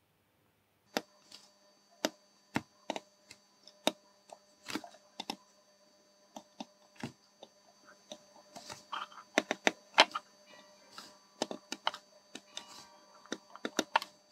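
Irregular light clicks and taps of a soldering iron tip and a small PCB against the bench as solder is dabbed onto the pads one after another. A faint steady hum of several held tones runs underneath from about a second in.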